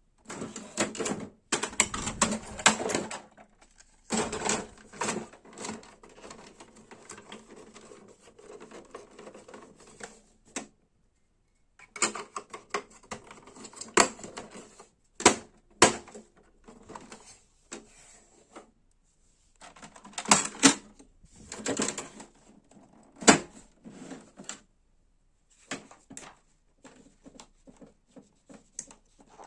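Irregular plastic and mechanical clicking and clattering from a Brother printer, in bursts of a second or two separated by short pauses, with several sharp single clicks.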